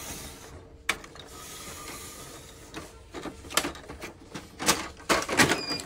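Plastic and metal parts of a laser printer's casing being worked open by hand. There is a single sharp click about a second in, then scattered clicks and knocks that grow busier toward the end.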